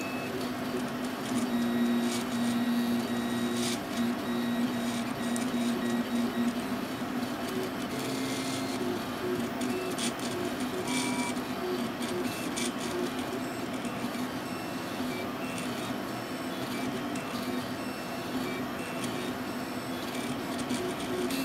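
RepRap Prusa Mendel 3D printer running: its stepper motors whine at steady pitches that shift every few seconds as the moves change, with a few faint clicks.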